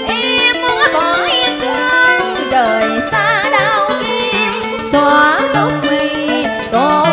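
A woman singing a long, drawn-out cải lương phrase with wavering vibrato and sliding ornaments, over live instrumental accompaniment.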